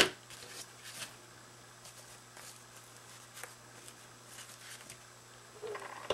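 A sharp click right at the start, then faint rustling and scattered light ticks of paper and craft supplies being handled.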